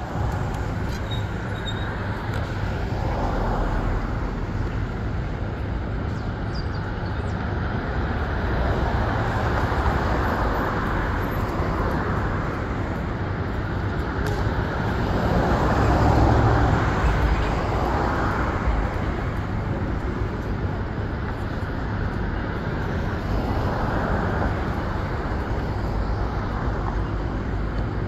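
City street traffic noise: cars and other motor vehicles running along the street, a steady rumble that swells and eases as vehicles pass, loudest about two-thirds of the way through.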